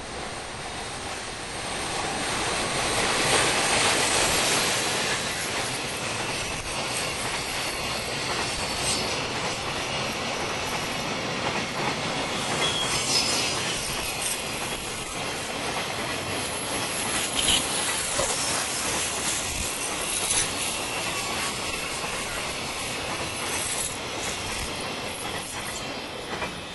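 JR Freight container train hauled by an ED76 electric locomotive rolling past, loudest about three to four seconds in. A long run of wagons follows with wheel clicks on the rail joints and a few brief high-pitched wheel squeals.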